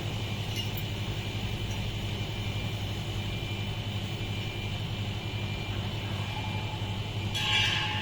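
Steady low machine hum, with a brief hiss about a second before the end.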